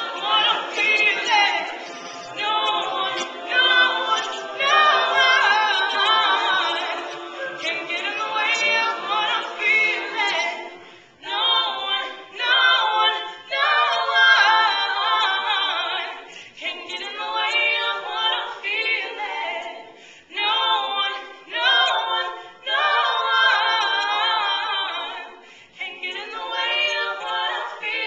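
Mixed-voice a cappella group singing without instruments, a female soloist leading over the ensemble's backing vocals, in phrases separated by short breaks.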